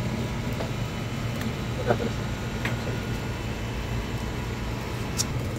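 Steady low machine hum, with a few faint clicks and taps.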